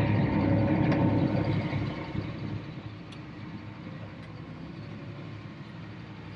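Diesel engine of a large farm machine running steadily, louder for the first couple of seconds and then settling to a lower, even drone.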